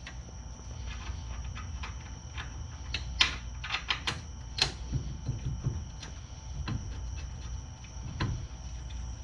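Irregular sharp metallic clicks and taps of hand tools and bolts being worked at a car's brake caliper bracket, with a quick cluster of clicks about three to five seconds in and single ones later, over a steady background hum.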